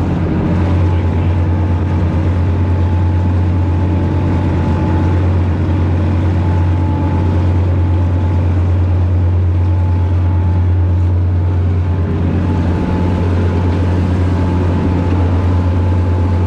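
Sportfishing boat's engines running steadily, a loud low drone with a faint steady whine above it.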